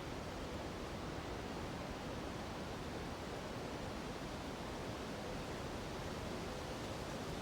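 Steady rushing of a mountain river mixed with wind through the treetops, an even unbroken hiss with no distinct events.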